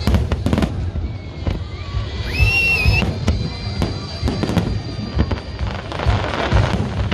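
Fireworks going off: repeated sharp bangs and crackling bursts over a low rumble. About two and a half seconds in, a high whistle rises, holds and falls.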